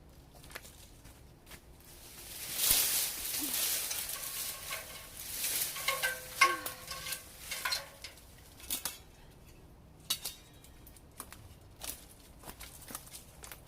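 Leafy tree branches rustling as they are handled for a few seconds, with a brief squeak, followed by scattered sharp clicks and snaps.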